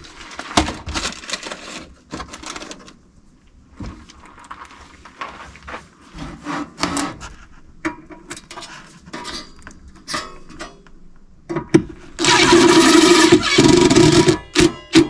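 Scattered clicks and knocks of metal parts being handled. About twelve seconds in, a power drill runs loudly in one burst of about two and a half seconds, working a hole or self-tapping screw into the forge's steel base.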